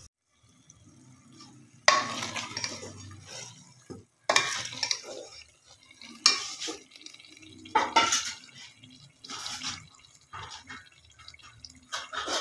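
A spoon stirring thick mashed eggplant curry in a metal pot, scraping and knocking against the sides in a run of clattering strokes, one about every one and a half to two seconds after a quiet start.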